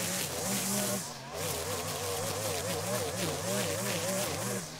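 Gas string trimmer engine running at high revs while cutting tall, thick grass, its pitch wobbling up and down quickly under the changing load, with a brief let-off about a second in.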